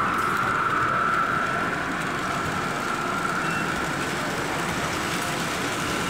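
Model trains running on a layout: a steady electric-motor whine, strongest for the first second or two and then fading, over a continuous hall background noise.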